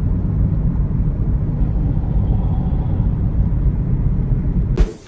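Steady low rumble of a car driving on a freeway, road and wind noise, cutting off abruptly near the end.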